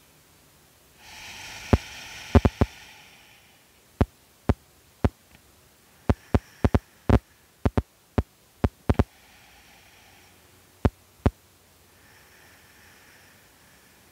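A person breathing slowly and audibly through a close microphone, with one long exhale about a second in and softer breaths later. About twenty sharp, irregular clicks are scattered throughout and are the loudest sounds.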